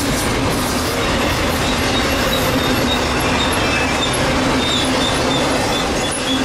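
Norfolk Southern freight train cars rolling past, a steady rumble of steel wheels on rail with short high wheel squeals dotted through it.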